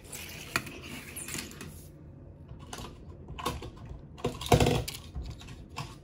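Small die-cast metal toy cars clicking and clattering as they are handled, set down and picked up from a pile, with a louder knock about four and a half seconds in.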